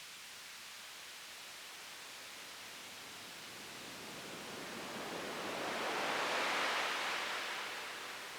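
Steady hiss, with a smooth swell of rushing noise that builds from about four seconds in, peaks near six and a half seconds and fades away.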